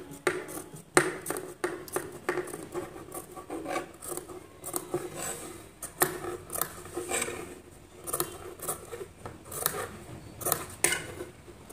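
Large tailor's shears snipping cloth in a series of short, irregular snips, clipping small notches into the curved seam allowance of a stitched neckline so it can be turned.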